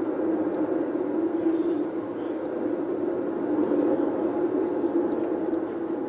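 Steady low background rumble, with a few faint ticks of a female Eurasian bullfinch pecking at seeds on a wooden feeder tray.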